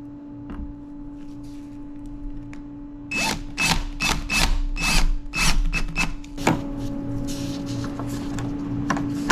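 Cordless drill driving wood screws in about ten short trigger pulses, each a brief whir. Small clicks of chain links being handled come before and after.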